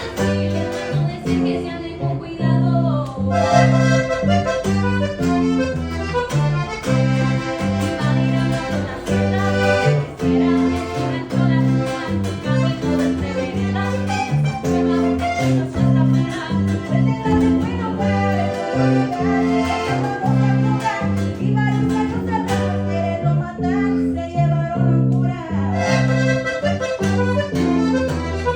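Norteño-style music: a button accordion playing the melody over strummed guitar and a bass line that steps between notes to a steady beat.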